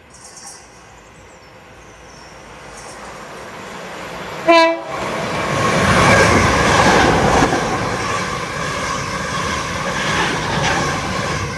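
South Western Railway Class 455 electric multiple unit gives one short horn blast as it approaches. It then runs through the station at speed, its wheels and running gear swelling to a loud rush as the carriages pass.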